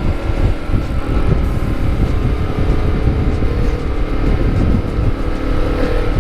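Honda CBR250RR engine running through a KEA Speed aftermarket exhaust while the bike is ridden at fairly steady revs, with wind buffeting the microphone.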